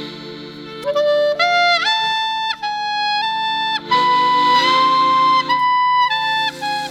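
Upbeat background music: a woodwind melody of held notes over a steady accompaniment with a repeating beat.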